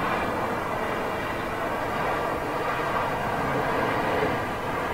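Airbus A350-1000's Rolls-Royce Trent XWB turbofan engines at high power: a steady jet noise with a faint whine of fan tones above it.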